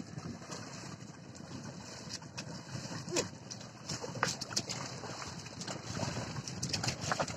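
Wet mud and water sloshing and splashing as bullocks drag a plough through a flooded field, with scattered sharp clicks and splashes throughout.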